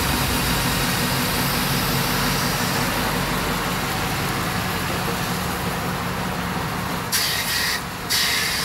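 A motor vehicle engine idling with a steady low hum under a broad rushing noise. About seven and eight seconds in come two short hissing bursts.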